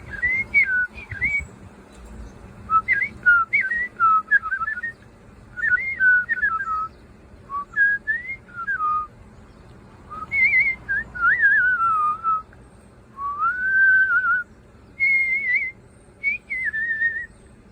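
A person whistling in imitation of birdsong: short phrases of sliding, warbling notes separated by pauses, with one longer held note about two-thirds of the way through and a quick run of repeated short notes near the end.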